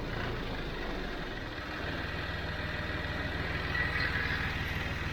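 John Deere 5055D tractor's diesel engine running steadily with an even low pulsing.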